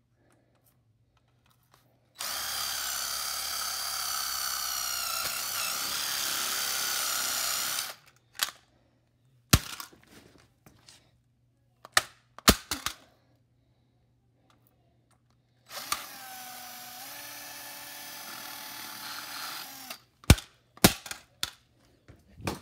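Cordless power drill run twice, a steady whine of about six seconds and then about four seconds, its pitch dipping under load as it bores into a plastic computer mouse. Between and after the runs come several sharp knocks of hard plastic being struck.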